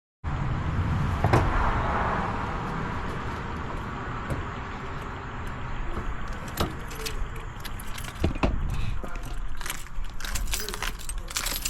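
Clicks and clinks of tools and car parts being handled over a steady low rumble of background noise.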